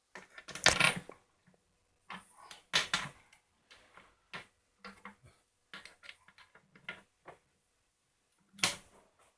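Scattered light clicks and knocks of tools and metal parts being handled, with a louder knock about two thirds of a second in and another near the end.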